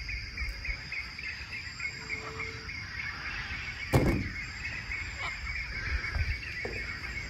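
Toy figures being handled in a cardboard box, with one sharp knock about four seconds in and a few lighter taps. A steady high chirping runs behind throughout.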